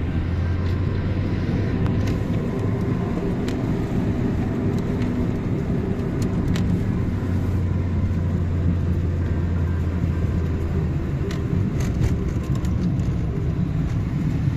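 Car running, a steady low drone with faint scattered ticks over it.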